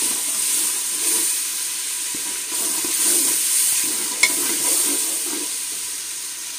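Spice masala sizzling in oil in a metal pot while a slotted steel spatula stirs and scrapes through it, with one sharp click of the spatula against the pot about four seconds in. The sizzle eases a little toward the end.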